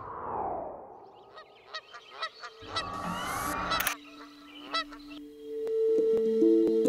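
A honking call falling in pitch and fading at the start, a few clicks, then a second loud honk about three seconds in lasting about a second. Plucked-string music starts about five seconds in and is the loudest part.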